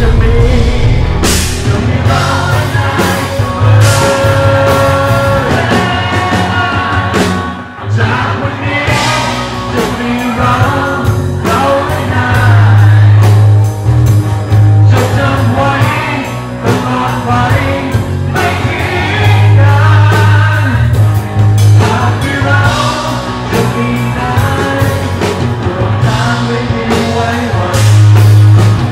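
Rock song played by a band with singing: a steady bass line, a regular drum beat and a lead voice over the top.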